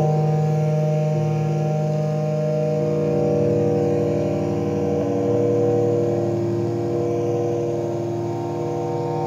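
Ciat-Lonbarde Rollz-5 synthesizer drone: four avdog oscillators through gong filters and two Cocoquantus delays in series, making a dense, steady chord of several sustained tones with a fine pulsing texture. The tones shift a little about three and five seconds in as the controls are adjusted.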